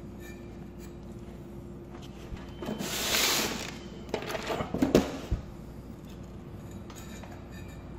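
Electrical wires being handled and twisted together at a baseboard heater's wiring compartment: a rustle about three seconds in, then a few light clicks and taps, over a faint steady hum.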